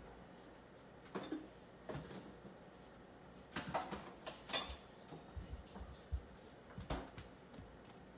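Faint, scattered knocks and clatter of kitchen things being handled, with a small flurry of clicks about three and a half to four and a half seconds in and a few low thumps after it.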